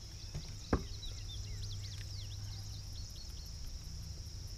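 Pond-side ambience: a steady high insect drone with a bird singing a quick run of chirps. A single sharp knock about three-quarters of a second in is the loudest sound.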